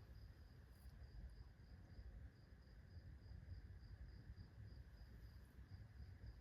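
Near silence: low room rumble with a faint high-pitched chirp pulsing evenly, about three times a second.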